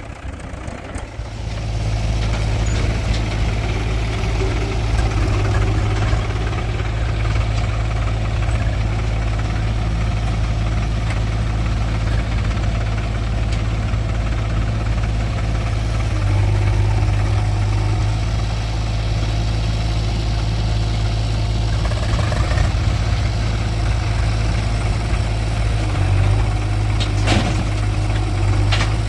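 Heavy diesel engines of a backhoe loader and farm tractors running steadily at low revs with a deep hum. The sound is quieter for the first second or two, then holds steady, with a brief sharp sound near the end.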